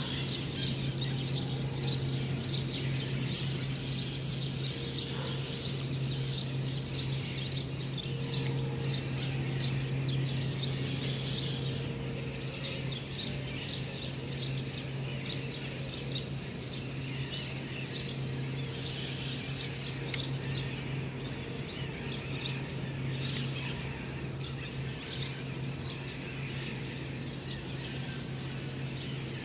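Dawn chorus of many birds: dense, overlapping high chirps, over a steady low hum.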